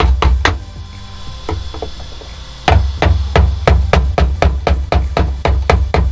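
Hammer driving a screwdriver against the fuel pump lock ring of a 2003 Honda Element, metal-on-metal taps with a dull thud through the floor panel, about four or five a second. A short, quieter break with a few lighter taps comes in the middle. The strikes move around the ring to free it without shearing its tabs.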